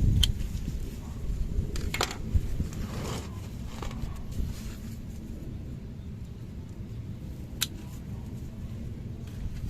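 Wind buffeting the microphone as a low rumble, with a few sharp clicks and rustles of hands working a plant pot and its soil.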